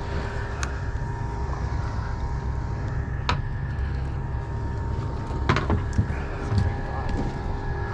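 Outboard engines idling, a steady low rumble with a hum, with a few sharp clicks scattered through.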